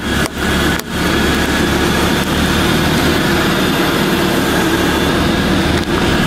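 Mercedes-Benz car engine running at a low, steady idle as the car rolls slowly forward, with two brief dips in the sound in the first second.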